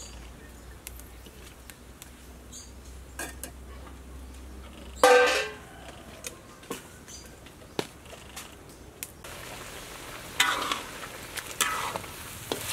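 Saucy stir-fry simmering and sizzling in a wok over a wood fire, with a metal ladle clicking and scraping against the pan. There is one loud metal clatter about five seconds in, and busier stirring near the end.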